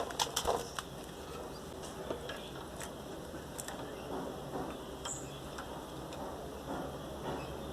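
A quick run of sharp clicks right at the start, then scattered faint ticks and light taps, with one short high chirp about five seconds in.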